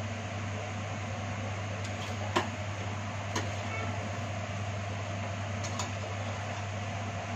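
A metal spatula clinks lightly against a steel kadhai and plate three times, the sharpest about two and a half seconds in, as boiled dough strips are lifted out one by one. A steady low mechanical hum runs underneath.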